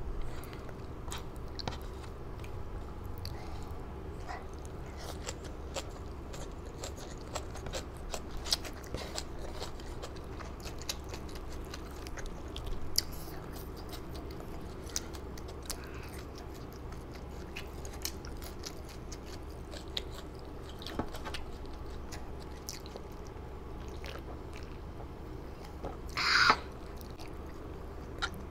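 A person chewing and biting food close to the microphone, with scattered small crunches and mouth clicks over a steady low hum. There is one louder, brief crunching noise near the end.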